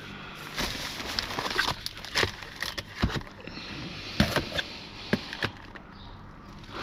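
Packaged household products being handled and sorted: irregular clicks, knocks and packaging rustles as items are picked up and set down.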